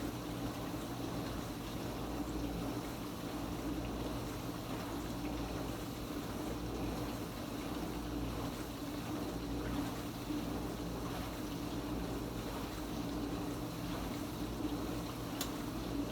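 Kenmore Ultra Wash 3 dishwasher mid-cycle on Quick Rinse: the pump motor hums steadily while water sprays and splashes inside the tub.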